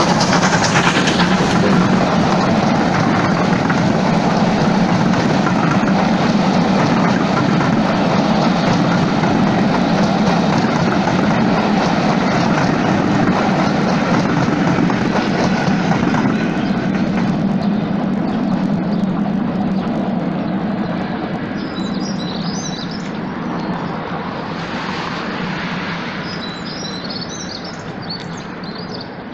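Steam-hauled train passing close by: GWR 94xx pannier tank No. 9466 and its coaches roll past on the rails with a steady rushing noise that fades slowly as the train draws away. Birds chirp in the second half.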